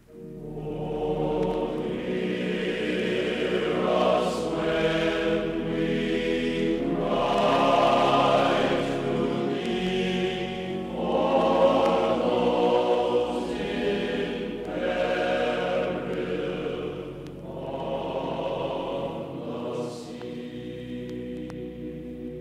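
Background choral music: a choir singing long held chords that swell and fade in slow phrases.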